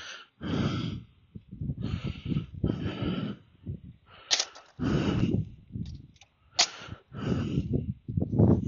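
Short bursts of rustling noise on a phone's microphone, about once a second, as a person climbs down out of a semi-truck cab, with two sharp clicks partway through.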